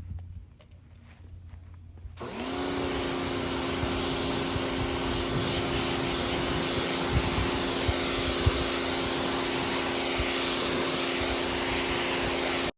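Electric pressure washer starting up about two seconds in: its motor and pump quickly rise to a steady pitch and run with the loud, steady hiss of the water jet, after a few faint clicks.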